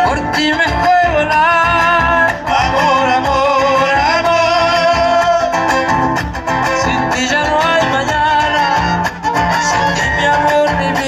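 Live folk band playing: a sung melody over strummed acoustic guitars, with violins and a bass drum, heard loud through a concert sound system.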